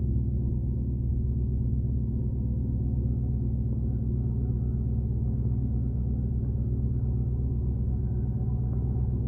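Boat engine running steadily at constant speed: a continuous low drone with a humming tone.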